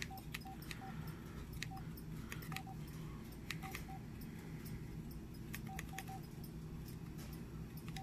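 LG CU400 phone's key tones: faint short beeps of one pitch, some single and some in quick pairs or threes, with soft clicks of its keys as its menus are scrolled.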